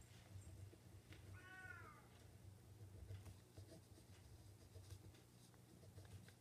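A cat meows once, faintly, about a second in: a short call that rises slightly and then falls in pitch.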